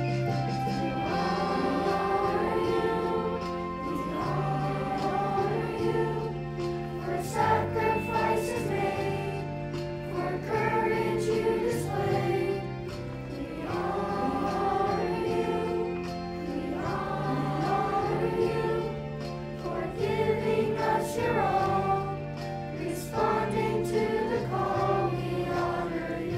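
Music: a choir singing over instrumental backing, with held low bass notes that change every couple of seconds.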